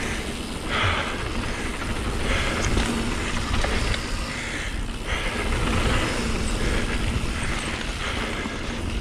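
Wind rushing over the camera microphone as a 2018 YT Capra AL 27.5 mountain bike speeds down a dirt trail, with its tyres rolling over hardpacked dirt and loose gravel. Occasional small clicks and rattles come from the bike.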